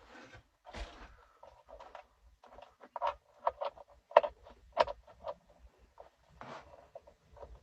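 Handling noises: rustling with a run of sharp clicks and taps, most of them about three to five seconds in.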